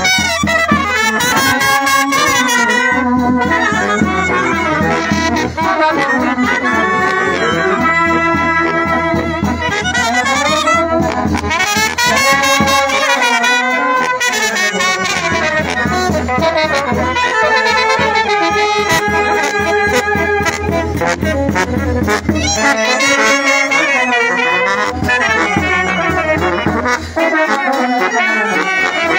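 Romanian brass band (fanfară) playing a folk tune: trumpets carry an ornamented melody over large-bell horns and a low bass part, which drops out briefly twice.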